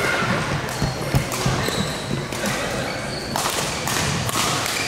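Badminton rackets hitting shuttlecocks, a string of sharp hits from the surrounding courts with the loudest about a second in, mixed with short squeaks of court shoes on the floor.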